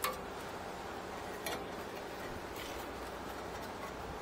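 A few light metallic clicks, one right at the start and a weaker one about a second and a half in, over a steady low background noise: tools and brake parts being handled while the rotor is worked loose.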